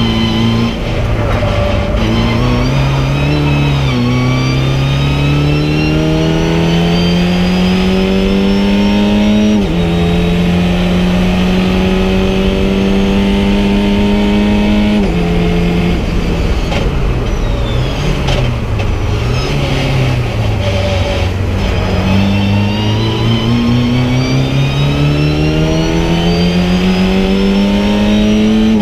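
Race car engine heard from inside the cockpit, pulling hard and rising in pitch, with two quick drops for upshifts in the first ten seconds. It then holds a steady pitch for several seconds, drops away about halfway through as the driver lifts and changes down, and climbs again under full acceleration over constant road and wind noise.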